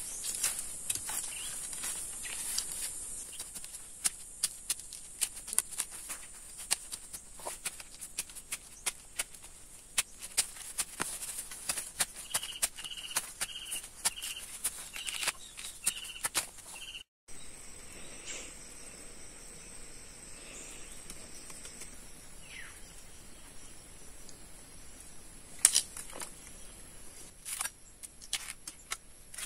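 A machete chopping at the base of a bamboo shoot in dry bamboo litter: many sharp chops and crackles of leaves over a steady high insect drone. A bird chirps a quick string of short notes midway. The chopping stops about halfway through, leaving the high insect tones and a couple of knocks.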